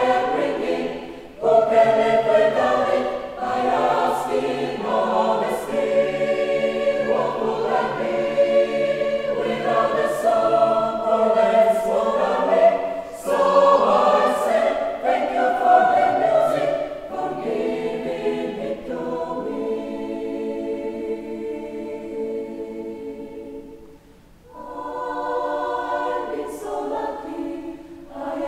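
Mixed choir of men's and women's voices singing a cappella. The voices break off briefly about a second in, grow softer later on, almost die away, and then come back in near the end.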